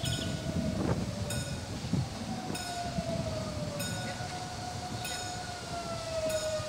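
CAF-UTA 3700 light-rail tram pulling into a station, with a steady whine that slowly falls in pitch as it slows, over a low rumble. A short ringing stroke repeats about every second and a quarter.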